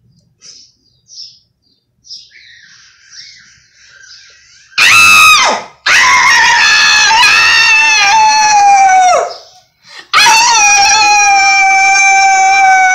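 A person's voice giving three loud, high-pitched wailing calls: a short one that sweeps down, then two long held ones that each drop in pitch at the end. Faint high chirping comes before them.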